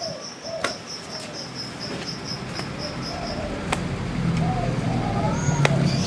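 Crickets chirping in a fast, steady pulse that fades out about halfway through, with a few faint short bird calls and a few sharp taps. A low hum swells in the second half.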